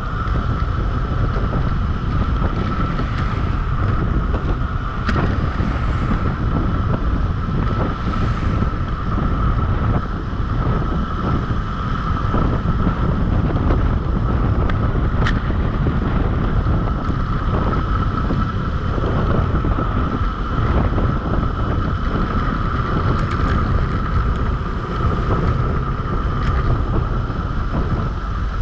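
Wind buffeting the microphone on a fast bicycle descent: a dense, steady low rumble with a steady high-pitched whine running through it and a few faint clicks.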